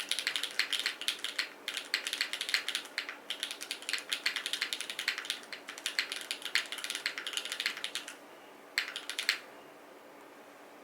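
Fast typing on a Vertex Arc60 mechanical keyboard with JWK Catmint switches, an aluminium plate, no foam and GMK keycaps: a dense stream of keystroke clacks. It pauses about eight seconds in, comes back in a short burst a second later, then stops.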